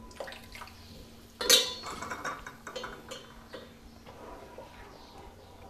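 A wooden spatula stirring thin, watery gravy in a frying pan, with a run of light knocks and scrapes against the pan. One louder clatter about a second and a half in.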